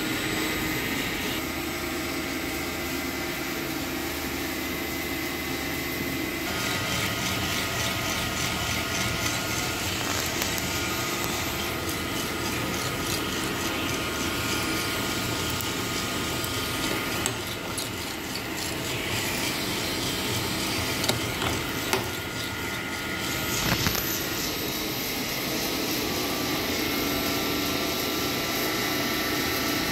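Drum coffee roaster running mid-roast: the drum and fan run steadily while the beans tumble and rasp inside. The sound grows harsher about six seconds in, and a few sharp clicks come in the second half.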